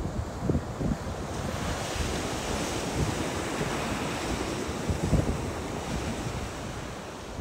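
Sea waves breaking on a beach, a rushing hiss that swells through the middle, with wind buffeting the microphone in a few low gusts.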